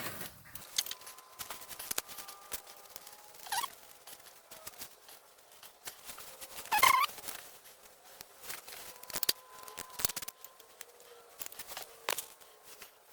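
Scattered small metallic clicks and scrapes of a new serpentine belt tensioner pulley and its bolt being worked into place in a minivan's engine bay by hand and with tools, with a short squeak about seven seconds in.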